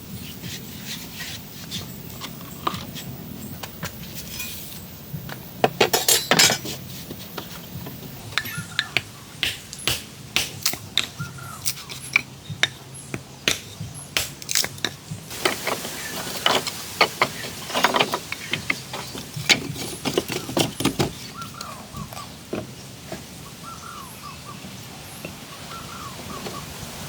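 Irregular sharp knocks and clacks of wood being handled and struck, densest around six seconds in and again from about sixteen to twenty-one seconds.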